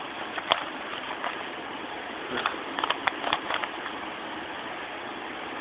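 Rubik's cube layers being turned by hand: scattered short plastic clicks, most of them bunched together a little after two seconds in, over a steady background hiss.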